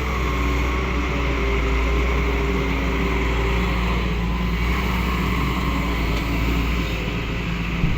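Doosan excavator's diesel engine running steadily under work, a constant low drone, with a brief knock near the end.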